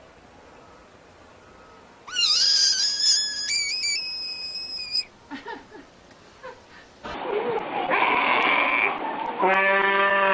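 Animal cries. About two seconds in comes a high-pitched call held for about three seconds, stepping up in pitch. From about seven seconds a goat screams in long, loud bleats.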